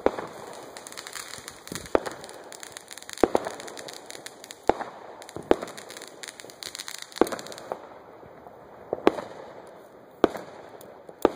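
Consumer fireworks going off: a string of about nine sharp bangs, one every one to two seconds, over a crackling hiss that stops about two-thirds of the way through.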